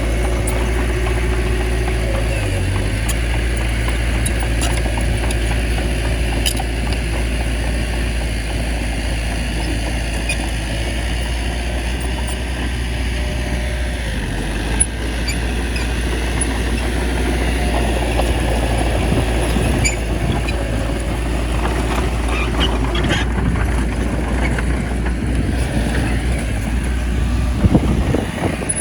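Small bulldozer's diesel engine running steadily under load as it pushes soil.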